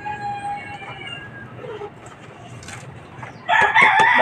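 Rooster crowing, its long drawn-out call trailing off in the first second, with a man's voice starting loudly about three and a half seconds in.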